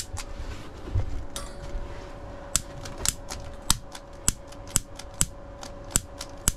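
A gas igniter clicking over and over, about twice a second and a little unevenly, as someone tries to light a propane burner to pull gas through the lines. No flame catches: the gas is not flowing yet.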